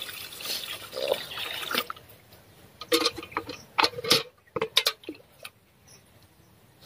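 Tap water running into a steel pail for about two seconds, then a string of sharp splashes and knocks as a plastic bowl is rinsed and handled under the tap.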